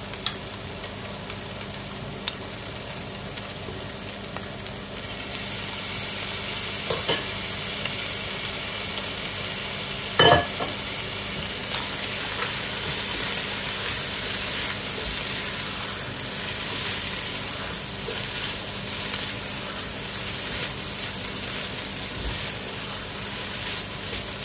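Shredded chicken with spices sizzling in a hot pot as it is stirred; the sizzle grows louder about five seconds in. A few sharp knocks of the utensil against the pot, the loudest about ten seconds in.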